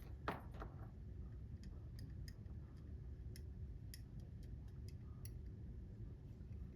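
Faint, irregular small clicks as a cutting broach is turned by hand in a clock bushing hole to ream it a little larger, with one short louder scrape just after the start.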